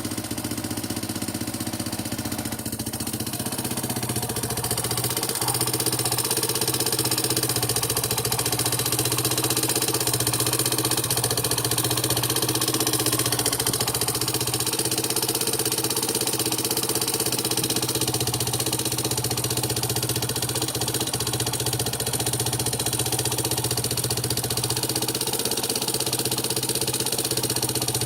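Yamaha Serow 225 (XT225) air-cooled single-cylinder four-stroke engine idling steadily, a little louder from about five seconds in. The running carries the abnormal engine noise that shows after the swap to an early 1KH-type engine.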